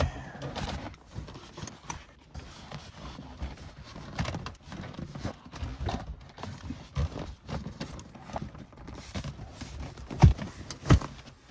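Rear seat bench cushion of a BMW E46 being handled and set into the car: rustling and scattered knocks against the trim, ending with two sharp thumps about a second apart as it is pushed down into place.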